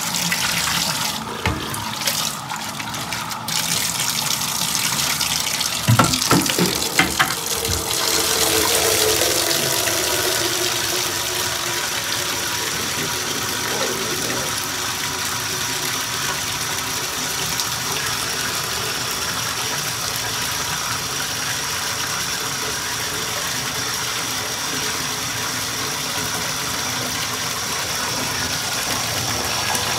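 Bathtub faucet running steadily into a plastic bucket standing in the tub, filling it with water, with a few knocks about six to seven seconds in.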